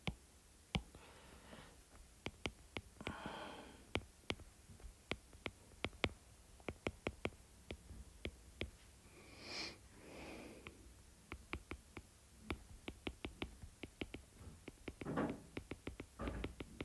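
Stylus tip tapping and ticking on a tablet's glass screen during handwriting, in quick irregular clicks, with a few soft breaths in between.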